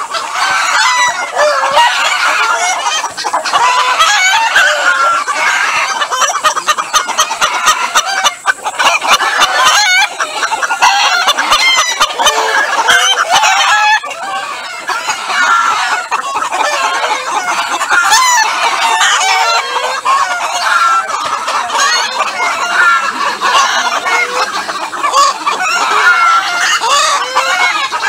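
A flock of hens and roosters calling together: many overlapping clucks and cackles, with roosters crowing among them.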